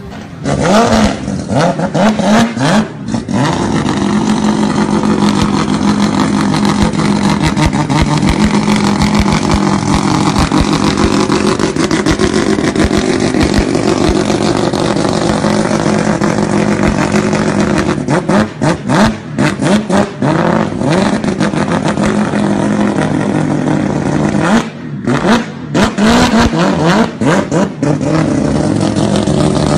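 Car engine revved hard through a loud exhaust: quick rising and falling blips at first, then a long stretch held at high revs. Around two-thirds of the way in and again near the end come more blips with bursts of popping and crackling from the exhaust.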